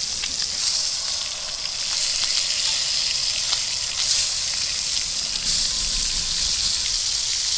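Brown trout and cutthroat trout fillets frying in butter in a cast-iron skillet: a steady high sizzling hiss with scattered small crackles.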